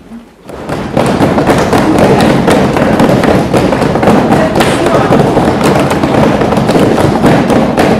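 Loud, dense clatter of many hands clapping and slapping from a group of people, starting suddenly about a second in.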